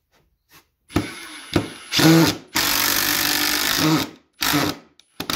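Ryobi cordless impact driver driving a long screw at an angle into framing lumber. The motor spins up briefly about two seconds in, runs steadily for about a second and a half, then gives two short bursts near the end.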